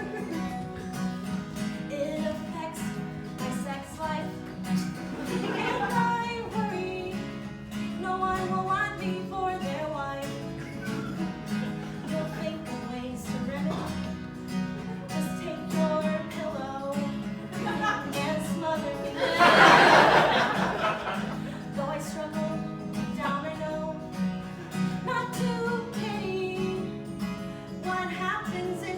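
A woman singing a song to acoustic guitar strumming. About twenty seconds in there is a brief, loud, noisy burst over the music.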